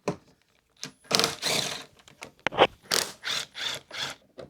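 A hex-bit driver backing out small 3 mm hex screws from an electric unicycle's side cover: a series of short clicking and scraping bursts, the longest about a second in, then quicker ones in the last second and a half.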